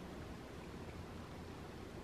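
Quiet room tone: a faint steady hiss with a low hum and no distinct sound.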